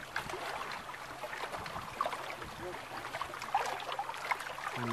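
Small waves lapping and splashing against a boat hull, an even watery wash with scattered faint clicks and a faint low hum underneath.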